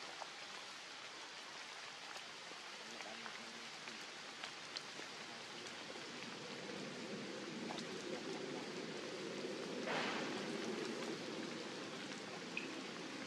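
Light rain falling: a steady hiss scattered with small drip clicks, thickening a little about halfway through, with one brief louder swish near the end.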